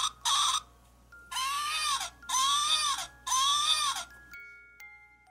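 Electronic baby doll's voice chip sounding as its tummy is pressed: two short baby-voice bursts, then three longer crying wails, each rising and falling in pitch. In the last second a few chime-like notes ring out.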